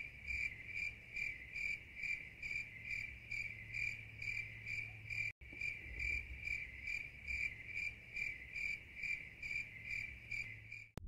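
Cricket chirping: a high, clear trill pulsing evenly about three times a second, with a brief break about halfway through.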